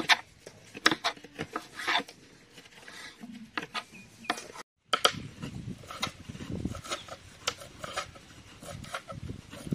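Kitchen knife knocking on a wooden cutting board while slicing tomatoes, a sharp knock about once a second. After a brief break, quicker knife chopping of coriander leaves on the board, with a coconut being scraped on a hand grater alongside in a rasping scrape.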